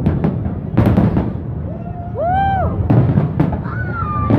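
Fireworks going off in a loud series of booms, with sharp bangs about four times, over a continuous low rumble.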